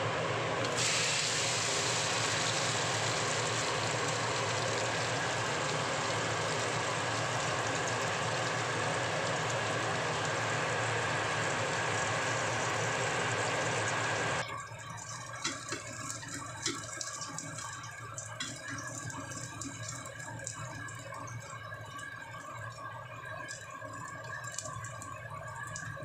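Hot oil sizzling loudly in a wok as a thin pancake fries. About halfway through the sizzle drops abruptly to a quieter crackle with scattered small pops, over a steady low hum.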